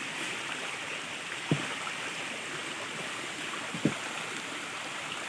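Steady rushing of flowing water, like a nearby stream, with two short low knocks, about a second and a half in and just before four seconds.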